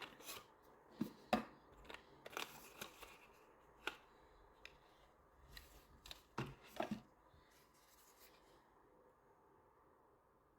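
Unboxing a wireless microphone: the box and its packaging being handled and opened, a scattered series of light clicks, taps and scrapes that die away after about eight seconds.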